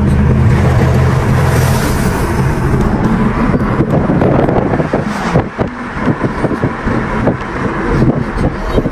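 Car driving on a highway, heard from inside the cabin: a steady low drone of engine and road noise for the first few seconds, then a rougher rumble of tyre and wind noise with scattered crackles.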